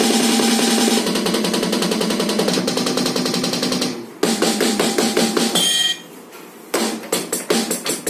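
Electronic drum pad sounds. A fast, dense run of drum hits breaks off after about four seconds. More hits follow with a short pitched electronic tone near six seconds, then after a brief pause a new pattern of separate hits begins.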